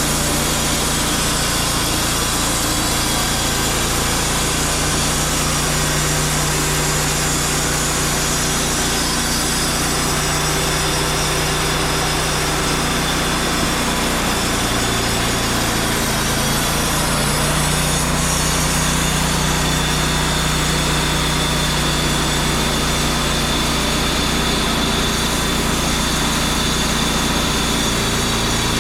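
Wood-Mizer portable band sawmill running steadily, its engine and blade going without a break, while milling a black walnut log.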